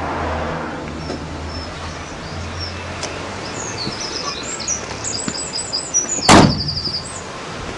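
Birds chirping in short repeated phrases over a low steady hum, then a single loud thump about six seconds in: the Golf's carbon-fibre door being shut.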